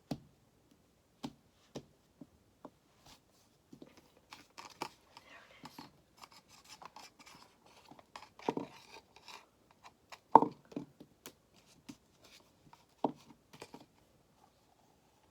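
Glue bottles and other slime supplies being picked up and set down on a table: scattered knocks and clicks with some rustling, the sharpest knock about ten seconds in.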